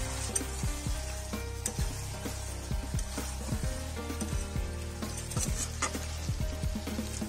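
Chicken and potato curry sizzling in a metal kadai as a spatula stirs it, with repeated short scrapes of the spatula against the pan. The masala is at the kosha stage, cooked down until the chicken is nearly done.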